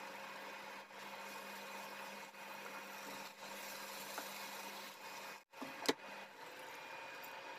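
Moringa drumstick pods frying in a spice paste in a pan, stirred with a spatula that scrapes and rubs against the pan, over a steady low hum. A brief cut-out and a sharp click come a little before six seconds in.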